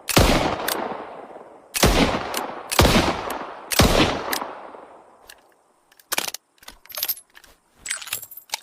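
Chiappa Rhino revolver firing four shots about a second apart, each followed by a long echoing decay. After the echoes fade, a run of short sharp clicks follows near the end.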